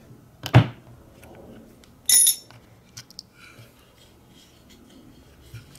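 A sharp click about half a second in as a Teflon end socket is forced with a wrench onto a clear plastic connector post, then a brief metallic clink about a second and a half later, followed by a few faint handling clicks.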